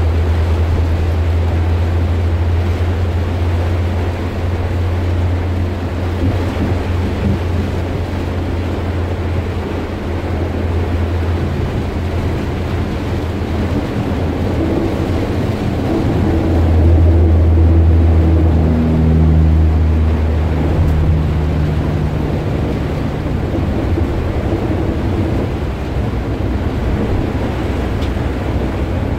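Heavy rain falling on a car's roof and windscreen, heard from inside the cabin while driving, over a steady low engine and road drone. The drone swells and grows louder a little past the middle.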